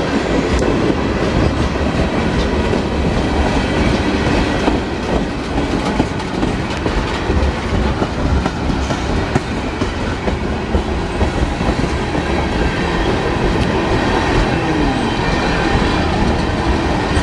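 A Norfolk Southern freight train's tank cars rolling past close by: a steady, loud rolling noise with scattered clicks from the wheels.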